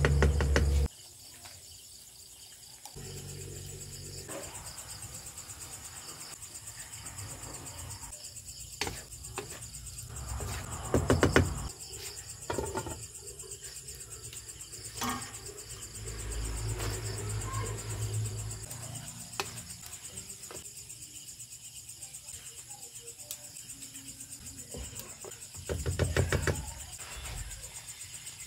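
Crickets trilling steadily, with a few scattered knocks and bumps, the loudest about eleven seconds in and again near the end.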